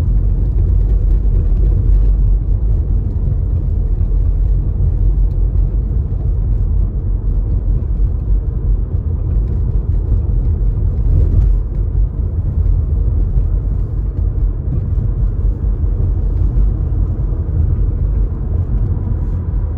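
Steady low rumble of a car driving along at an even pace: engine and tyre noise with no sudden changes.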